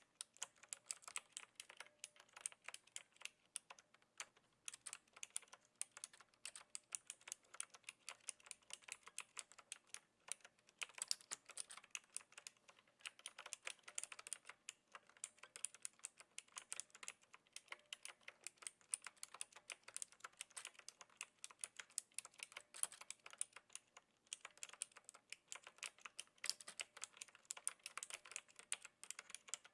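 Steady typing on a Knewkey Rymek typewriter-style mechanical keyboard with clicky blue switches: a quick, continuous stream of light key clicks, with a few brief pauses.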